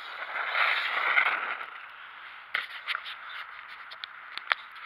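Arrma Typhon 4S electric RC buggy running on snow: a swell of motor whine and tyre hiss peaks about a second in and fades, then a scatter of sharp scraping clicks follows.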